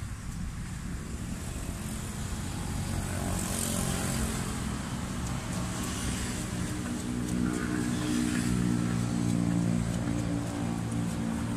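A motor vehicle's engine running nearby in street traffic, its steady hum growing stronger from about halfway in.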